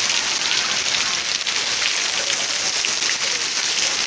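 Heavy rain pouring steadily onto a flooded street, the drops splashing into standing water.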